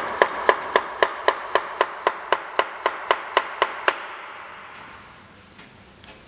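Chef's knife chopping raw potato on a plastic cutting board in quick, even strokes, about four a second, slicing it into thin 3.2 mm pieces for a paysanne cut. The chopping stops about four seconds in, and only a few faint taps follow.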